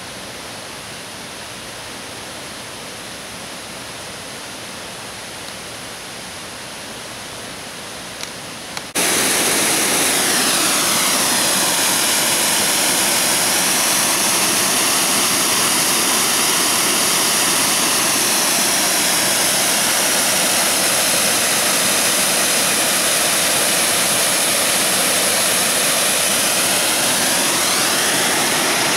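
Rushing water of a rocky creek and small waterfall. It is steady and fainter at first, then suddenly much louder about nine seconds in, a dense rush with a slowly wavering hollow tone.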